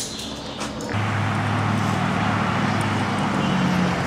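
A brief click at the start, then steady road-traffic noise with a low engine hum.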